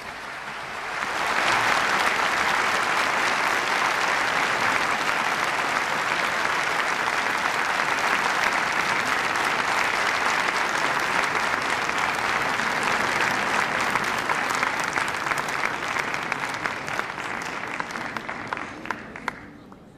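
Audience applauding. The applause swells over the first second or two and holds steady, then thins into scattered claps and dies away near the end.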